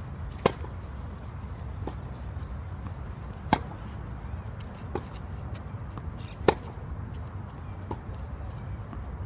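Tennis racket striking the ball in a baseline rally on a clay court: three loud, sharp hits about three seconds apart, with fainter ball sounds between them, over a low steady rumble.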